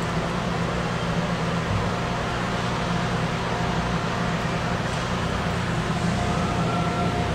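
Steady low hum with an even rush of air from a running electric fan, with a faint thin whine coming in near the end.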